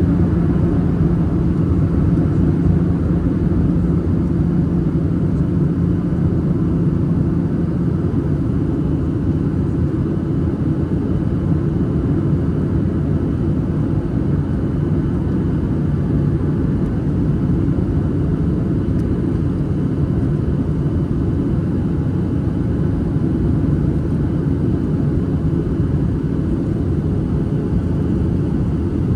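Steady cabin rumble of a Boeing 737-800 with CFM56-7B engines, heard from inside the passenger cabin. A low hum in it fades out about eight seconds in.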